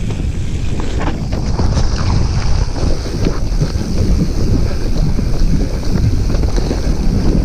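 Wind buffeting an action camera's microphone during a fast descent, over the rumble of mountain-bike tyres on a dirt trail and the knocks and rattles of the bike over bumps.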